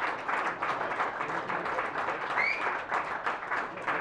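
Audience applauding, a dense patter of many hands clapping, with a short high whistle about halfway through.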